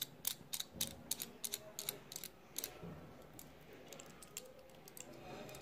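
Quick, irregular metallic clicks from a hand-held metal watch case opener as its knurled gear and pin posts are turned and handled; the clicking thins out after about two and a half seconds to faint handling sounds.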